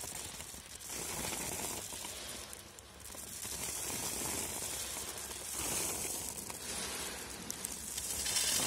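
Leftover groundnut kernels pouring out of the opened bottom outlet of a tractor-drawn planter's metal seed box, a rattling hiss that swells and eases several times as the box is emptied.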